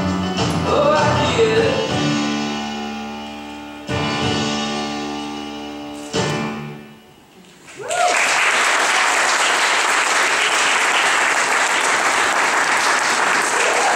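A song with a sung line ends on two held chords that ring and fade away. About halfway through, an audience starts applauding and keeps clapping steadily.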